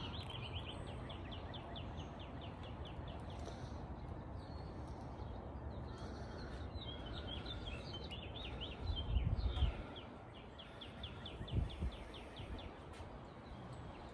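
A bird trilling: quick runs of short, high chirps, about ten a second, repeated several times over a steady background hum. A few dull knocks about nine seconds in and again near twelve seconds.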